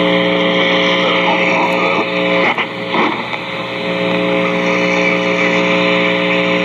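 Radio receiver noise between broadcasts: steady static hiss with a buzzing electrical hum under it, broken by two brief dropouts about two and a half and three seconds in.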